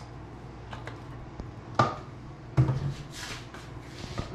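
Light kitchen handling sounds: a few sharp clicks and knocks as a plastic olive oil bottle is capped and set down and a wooden spoon is picked up, the loudest knock about two and a half seconds in with a brief hiss, over a low steady hum.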